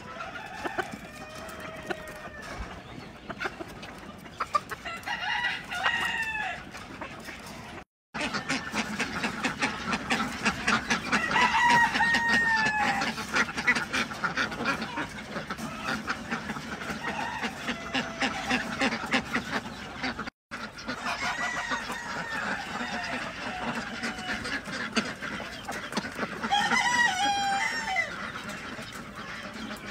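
Chickens clucking and giving short calls over a dense patter of bills pecking and dabbling at azolla water fern. The sound cuts out briefly twice.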